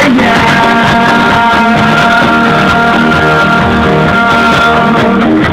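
Live synth-rock band playing, with several long held notes over the full band.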